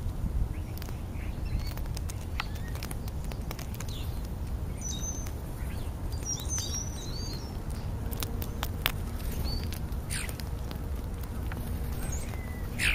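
European starlings giving scattered chirps, whistles and clicks, busiest in the middle, over a steady low background rumble.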